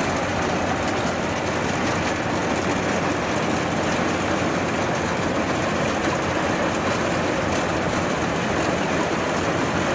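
Kubota tracked combine harvester running steadily while cutting and threshing rice: a dense, even machine noise with a low steady hum beneath.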